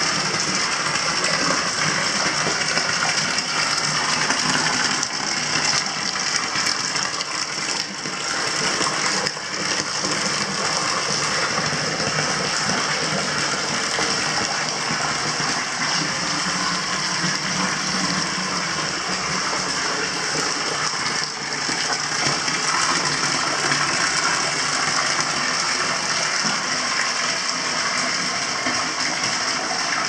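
Hot-spring water pouring in a thin stream into a tiled bath and splashing on the surface, with a steady rushing sound.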